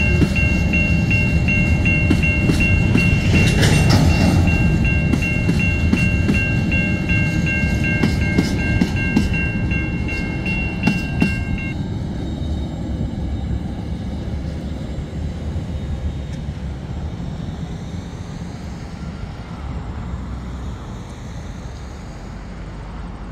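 Empty coal hopper wagons rolling past with sharp wheel clicks over the rail joints, while the level crossing warning bell rings in steady pulses. About twelve seconds in, the clicks and the bell stop and the train's rumble fades away.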